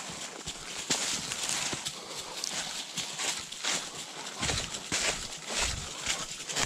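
Footsteps crunching and rustling through dry leaf litter at a walking pace, with a crackly step about every three quarters of a second and a couple of low thumps about two thirds of the way through.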